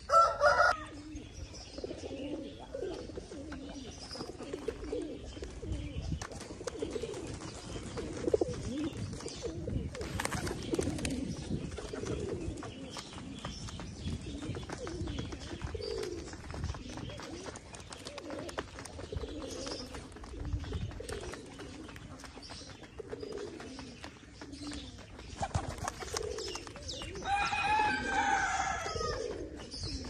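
Several domestic pigeons cooing over and over in low, wavering calls. A short louder sound comes right at the start, and a louder, higher wavering call about two seconds before the end.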